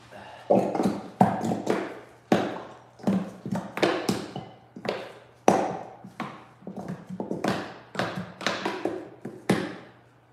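Plastic bottle of ArtResin epoxy held upside down and squeezed over a measuring cup, making a string of irregular sharp pops and crackles, about one or two a second, as the plastic flexes and resin is dispensed.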